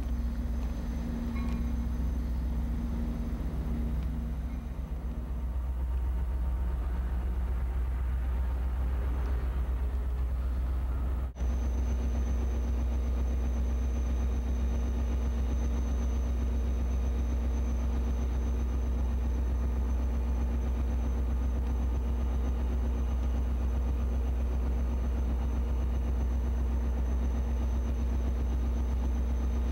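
Diesel locomotive idling out of sight: a VIA Rail F40PH-2's EMD 16-645 two-stroke V16 diesel, giving a steady low hum that holds even throughout. There is a momentary dropout in the sound about eleven seconds in.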